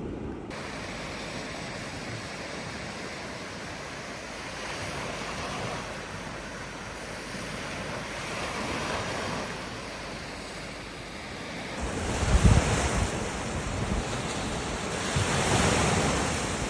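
Ocean surf washing onto the beach, the noise swelling and fading with each wave. About two-thirds of the way in, wind starts buffeting the microphone with low rumbling gusts.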